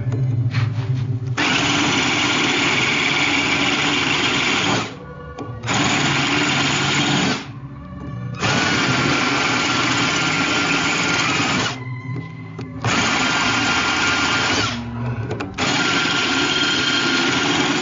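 A power tool running in five bursts of a few seconds each. Each run starts and stops sharply, with short pauses between.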